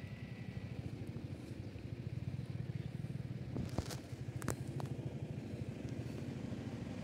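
A small engine running steadily as a low, evenly pulsing rumble, with a few sharp clicks about four seconds in.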